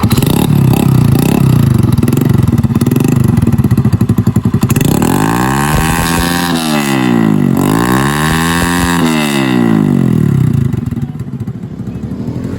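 Motorcycle engine with a straight-pipe exhaust, running loud with a rapid exhaust beat. About five seconds in, it is revved up and let back down twice. Near the end it settles to a quieter idle.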